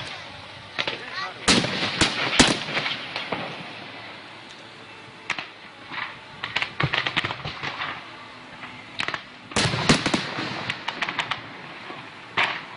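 Fireworks exploding in a finale barrage: sharp bangs in quick clusters, the loudest volleys about a second and a half in and again near ten seconds, with scattered smaller pops between.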